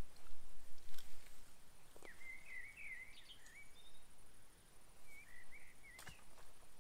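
A small bird twittering in two short warbling phrases. Around them come a few sharp knocks and rustles as cut grass is handled at a wheelbarrow.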